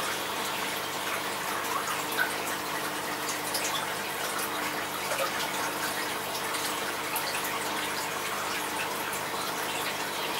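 Steady rush and trickle of aquarium water moving, as from a filter or pump, with a faint steady hum under it and a few small ticks.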